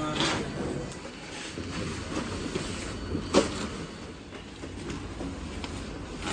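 Corrugated cardboard rustling and scraping as it is folded and wrapped around a plastic-wrapped tractor hood, with a sharper crackle about three and a half seconds in.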